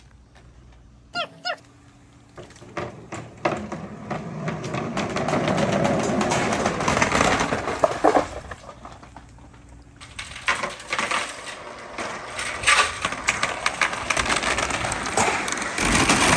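Many marbles rolling and clattering through a marble run, a dense stream of clicks and knocks. It builds up a few seconds in, thins out briefly about halfway, then picks up again.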